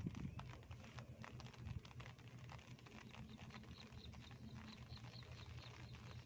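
Light rain falling on pond water, a faint irregular patter of drops. Through the middle a faint high chirp repeats a few times a second.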